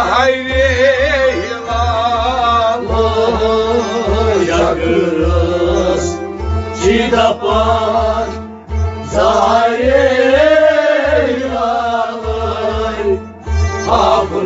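A man singing a Kashmiri Sufi kalam in a wavering, ornamented melody, accompanied by harmonium and stringed instruments over a steady low beat.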